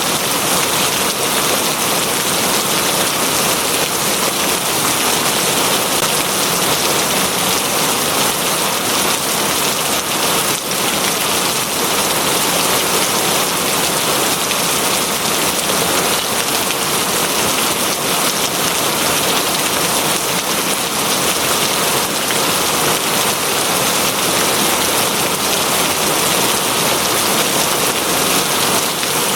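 Steady rain falling on a surface, an even, unbroken hiss.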